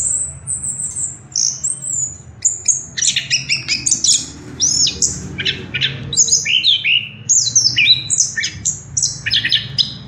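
Chestnut-capped thrush (anis kembang) singing a fast, varied song of high whistled sweeps and chirps. The notes are sparse at first and come thick and rapid from about two and a half seconds in, over a faint low hum.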